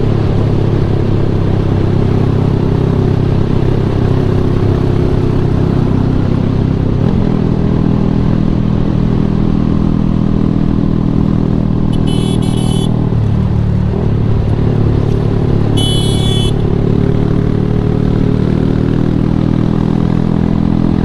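A motorcycle engine runs steadily alongside over road and wind noise, its pitch shifting about seven seconds in and again near fourteen seconds. It is the engine of a companion's bike that is foot-pushing an out-of-fuel scooter along. Two short high-pitched beeps come about twelve and sixteen seconds in.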